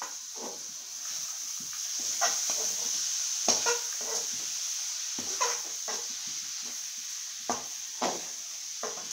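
Metal slotted spoon scraping and knocking against a metal kadai in irregular strokes as shredded cabbage and chana dal are stirred through the masala, over a steady sizzle of frying.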